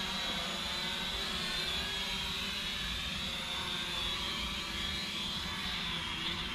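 Syma X500 quadcopter's propellers whining steadily as it flies low and close, the high pitch wavering slightly, with wind rumbling on the microphone underneath.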